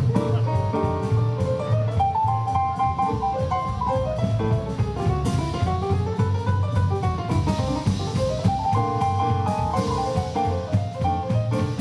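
Live band music with no singing: piano playing a moving melodic line over double bass and a drum kit keeping a steady beat.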